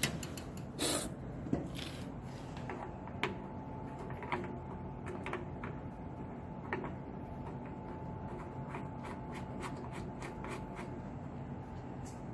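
Vacuum packaging machine running with a steady low hum, with scattered clicks and rubbing knocks from handling. A thin steady whine joins the hum about three seconds in and stops about a second before the end.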